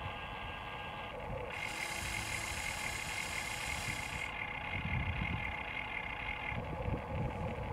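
Electric motors of a toy RC excavator whining steadily as the boom lifts and the bucket curls, the whine changing pitch and tone twice as different functions run. A couple of low rumbles come in the second half.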